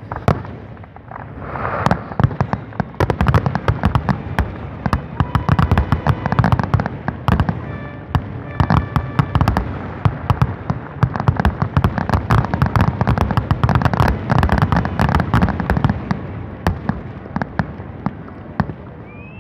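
Aerial fireworks display: a rapid, dense barrage of shell bursts and crackling bangs. It builds up about two seconds in and thins out near the end.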